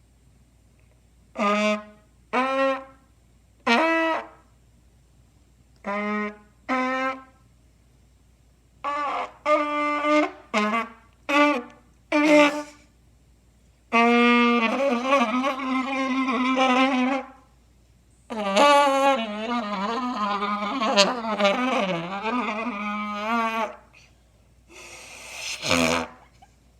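Trumpet blown to make odd noises: about ten short separate blasts, then two long notes with a wobbling pitch, and a short, rougher blast near the end.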